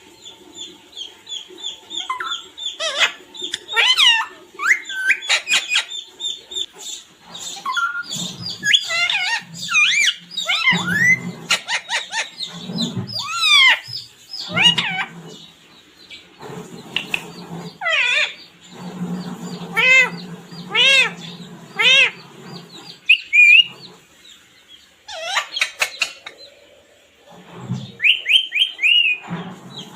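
A pet parrot calling over and over: a string of quick chirps and whistled calls that sweep up and down in pitch, with harsher, lower calls mixed in.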